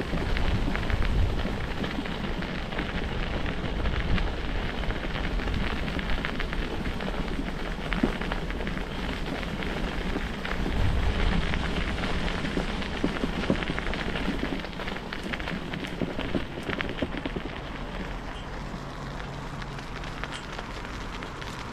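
Bicycle tyres rolling over a sanded asphalt path, a steady crackle of many small clicks, with wind rumbling on the camera's microphone. It gets a little quieter over the last few seconds.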